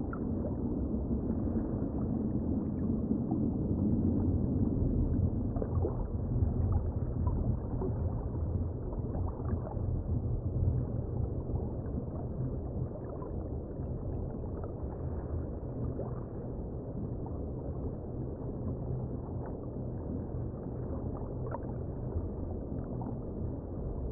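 Underwater ambience: a steady low rumble and wash, a little louder over the first several seconds, with faint scattered clicks.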